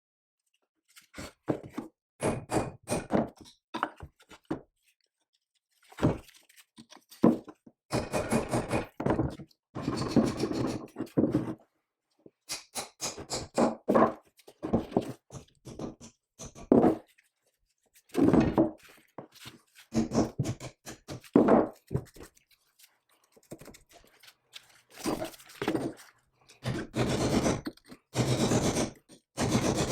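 Metal parts clunking, knocking and scraping as an old cast-iron power hammer is taken apart by hand, heard as short edited bursts that cut off abruptly into silence several times.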